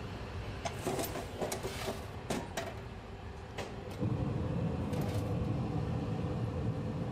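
Sharp metallic clicks and knocks of crematorium equipment being handled: doors and trays of cremated remains. About four seconds in, a machine starts with a steady low hum.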